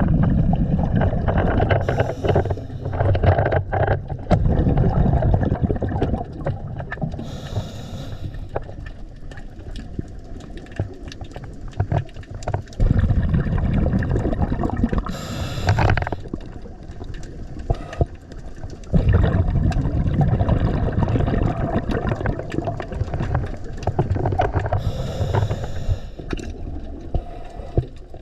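Scuba diver breathing through a regulator underwater: short hisses of breath every several seconds and long stretches of low rumbling, bubbling exhalation.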